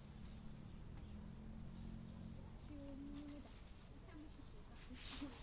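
Faint, high insect chirps, likely a cricket, repeating about once a second over a low steady background hum. A short rustle of hands in loose soil comes near the end.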